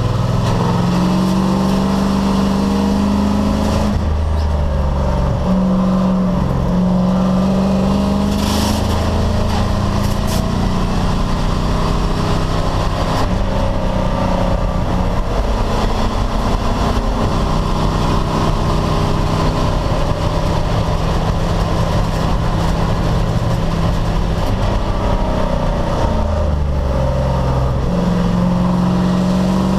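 Race car engine running hard on track, its pitch climbing and dropping repeatedly as it accelerates and comes off the throttle.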